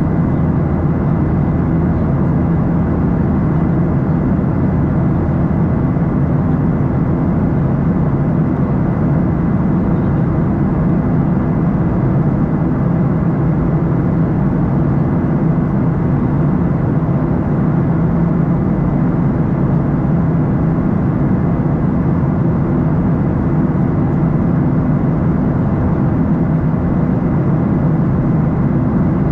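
Steady in-flight cabin drone of a Boeing 737-800, heard from inside the cabin beside the engine: its CFM56-7B turbofans and rushing air, a deep even noise with a faint steady high whine on top.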